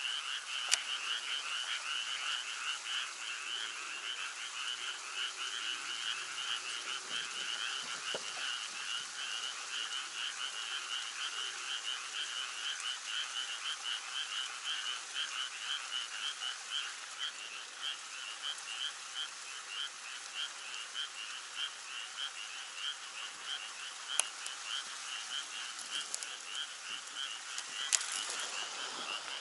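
A dense chorus of frogs calling, short croaks repeating several times a second without a break. A few sharp clicks stand out now and then.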